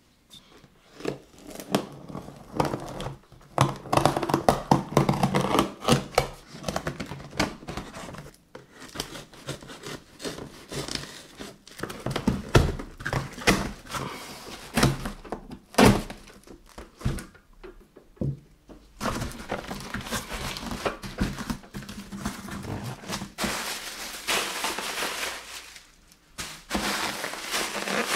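Cardboard shipping box being unpacked by hand: packing tape sliced and torn with a blade, cardboard flaps knocked and handled, and plastic air-pillow packing crinkling, with many irregular thunks.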